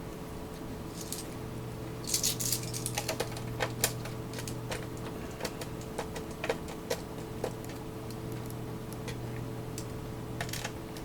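Irregular small clicks and light taps of parts and tools being handled while a Tascam Portastudio 414 MKII is taken apart, thickest a couple of seconds in and again near the end, over a steady low hum.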